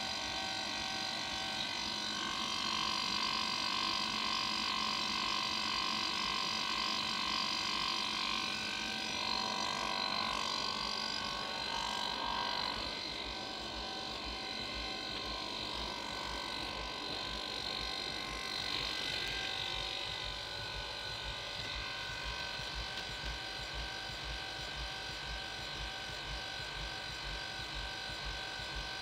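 Home-built helium compressor for a Gifford-McMahon cryocooler, built around a hermetic compressor, running steadily. It gives a continuous mechanical hum with several steady tones over a rapid low pulsing, and grows a little quieter about halfway through.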